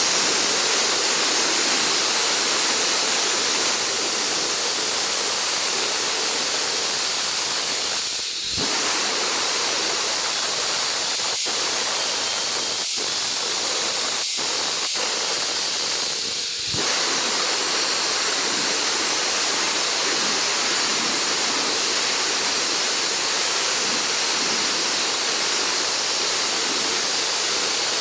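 Concrete slab-cutting saw running steadily through concrete, a continuous high-pitched noise that dips briefly twice, about eight and sixteen seconds in.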